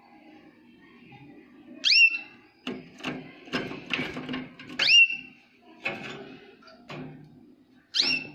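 A Jaspe canary gives a loud, sharp call three times, about three seconds apart. Each call is a quick downward sweep that settles into a short held whistle. Scattered clicks and knocks fall between the calls.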